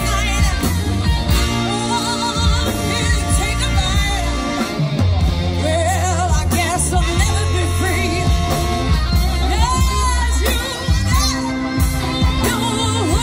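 Live band playing a pop-rock song: a woman sings lead with vibrato over drums, bass and keyboards, with a saxophone section on stage, all amplified through stage speakers.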